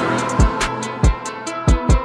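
Background music with a drum beat: several deep bass-drum kicks that drop in pitch, sharp high percussion hits, and held chord tones underneath.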